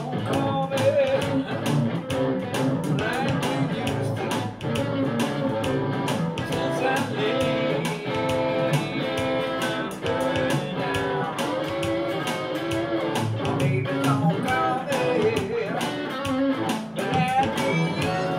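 Electric guitar playing a country-gospel shuffle over a steady beat, with bent notes here and there.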